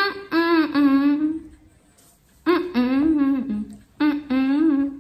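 A woman humming a tune in three short phrases, with held notes that waver in pitch and brief pauses between the phrases.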